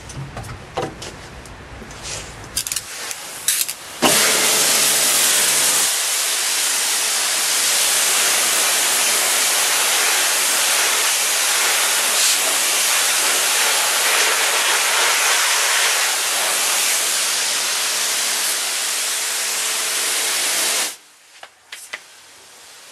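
Pressure washer jet spraying onto a car's plastic wheel-arch liner, rinsing off the applied cleaner: a loud, steady hiss of water that starts suddenly about four seconds in and cuts off near the end. A few clicks and knocks come before it.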